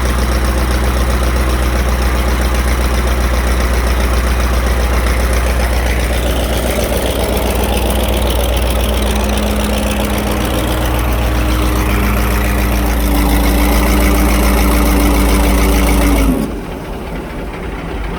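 Hydraulic static pile driver's diesel engine and hydraulic pump running with a steady low drone and a held whine. The whine rises slightly, then drops away sharply about sixteen seconds in, leaving a quieter rumble.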